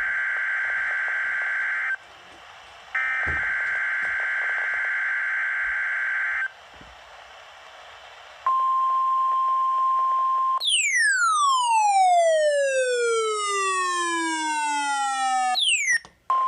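NOAA Weather Radio alert sequence: two long bursts of screechy digital SAME header data, then the steady 1050 Hz warning alarm tone starts about eight seconds in. About two seconds later the tone gives way to a buzzy tone gliding steadily down in pitch for about five seconds. After a brief glitch the 1050 Hz tone returns near the end.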